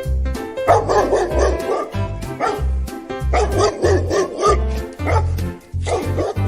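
Dog barking in four short bouts over cheerful background music with a steady beat.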